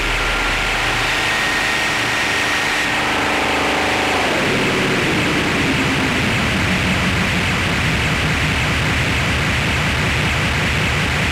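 Harsh electronic noise drone with heavy hiss; a tone slides down in pitch about four seconds in and gives way to a fast, even, low throbbing pulse.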